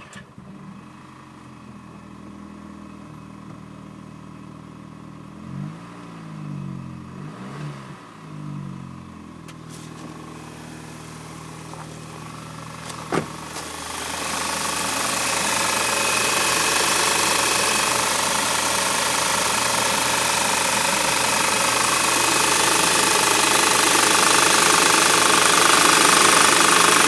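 Car engine idling, revved briefly a few times, then running much louder and noisier from about halfway through. The owner calls it an engine knocking, a weird engine noise.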